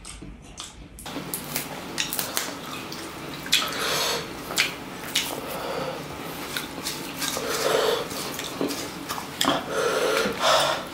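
Close-miked eating sounds: wet chewing and handling of fresh leafy greens by hand, with light clinks of a stainless steel bowl.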